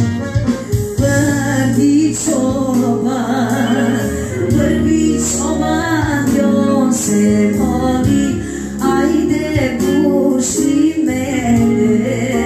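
A woman singing into a handheld microphone over amplified instrumental backing with a steady beat.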